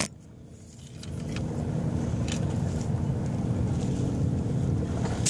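Steady low engine rumble that swells in over the first couple of seconds and then holds level.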